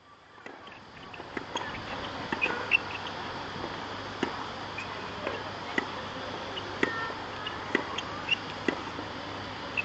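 Tennis balls being struck by racquet and bouncing on a hard court in a hand-fed hitting drill: sharp pops every half second to second or so, over a steady outdoor hiss. A few short high squeaks are among them.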